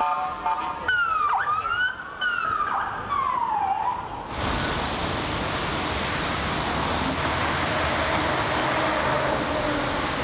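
An emergency vehicle's electronic siren, its pitch sweeping up and down quickly. About four seconds in, it cuts suddenly to a steady rushing noise of engines and traffic.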